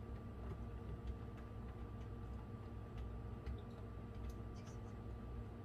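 Eggs in a cardboard egg flat handled by hand, their shells clicking lightly against each other and the tray in a scatter of faint, irregular ticks over a low steady hum.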